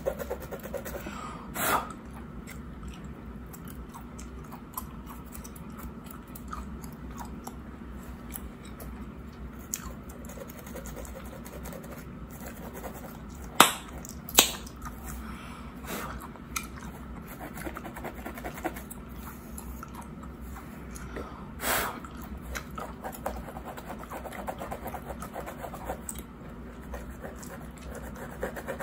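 Close-up gum chewing: wet, clicking smacks in a steady stream, with a few sharper, louder smacks, about two seconds in, twice around the middle, and once more later. Under it, the soft scratch of a plastic comb and fingernails on a mannequin's wig scalp.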